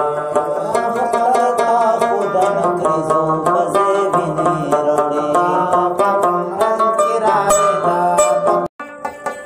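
Background music led by a plucked string instrument playing quick runs of notes. It cuts out abruptly for a split second near the end, then comes back quieter.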